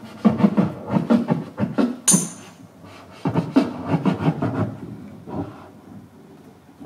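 Beatboxing: quick rhythmic mouth-made bass and percussion sounds a few tenths of a second apart, with a sharp hi-hat-like hiss about two seconds in, dying away after about five seconds.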